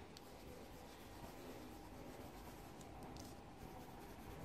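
Faint scratching of a coloured pencil shading on paper, with a few light ticks.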